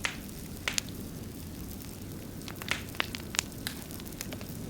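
Campfire crackling: irregular sharp pops and snaps, a few of them louder, over a steady low rumble.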